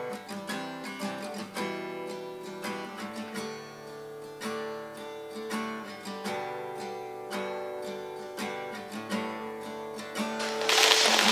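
Acoustic guitar playing a picked melody of single notes with some light strums. Near the end a louder hiss-like rush comes in over it.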